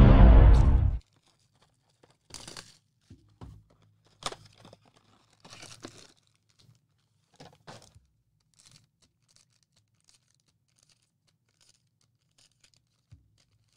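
A loud burst of music cuts off about a second in. It is followed by short bursts of tearing and crinkling as a blaster box's wrapping and its trading-card pack wrappers are torn open.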